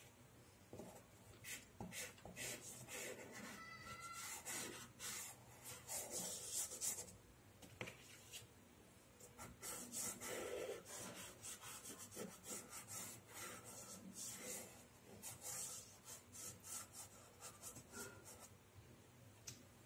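Soft pastel sticks rubbed and scraped across paper in many short, faint, repeated strokes.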